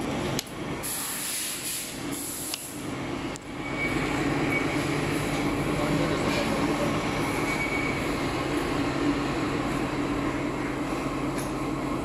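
Automatic vacuum cup sealing machine and its conveyor running with a steady mechanical hum, with two short hisses in the first three seconds and the hum louder from about four seconds in.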